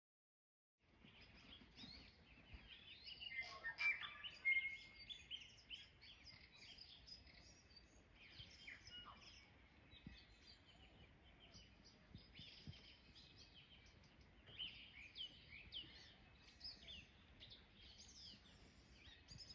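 Faint birdsong: several birds calling in many short, quick, overlapping chirps. It starts about a second in and is busiest a few seconds later.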